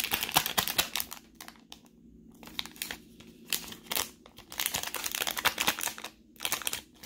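Clear polypropylene Cardboard Gold soft card sleeve crinkling and crackling as hands stretch and scrunch it in a strength test. The crackling comes in bursts, with a quieter lull from about a second and a half to three and a half seconds in.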